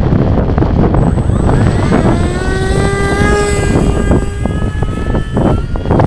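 Strong wind buffeting the microphone, with the whine of the Bixler 2 RC plane's electric motor and propeller rising in pitch about a second in, then holding fairly steady.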